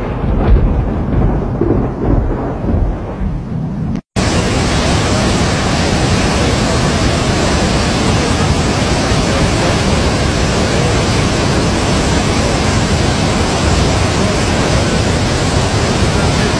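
Storm noise: an uneven low rumble that swells and fades for about four seconds, then, after a sudden cut, a loud steady rushing hiss like a heavy downpour.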